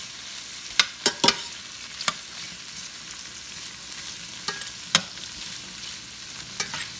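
Kielbasa sausage, bell pepper and onion frying in fat in a stainless steel skillet with a steady sizzle, while a metal spoon stirs them, clinking and scraping against the pan several times.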